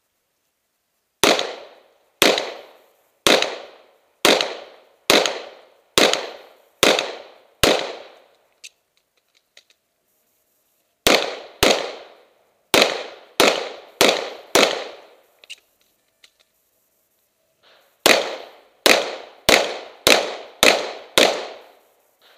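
Handgun shots fired in three quick strings: eight at roughly one a second, then six a little faster, then six more. Each shot has a short echoing tail, and the strings are separated by pauses of a few seconds.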